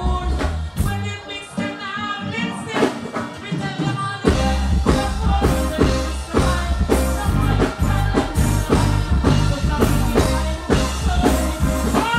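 Loud live reggae music with a man singing into a microphone over the band; the heavy bass and drums drop out for a couple of seconds and come back in about four seconds in.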